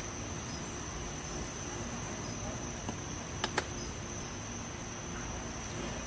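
Crickets trilling steadily in one continuous high tone over a background hiss, with two short clicks about halfway through.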